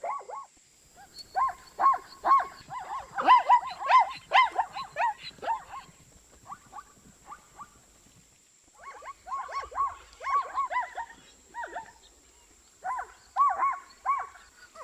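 Zebra calling: several bouts of quick, repeated barking yelps with short pauses between them.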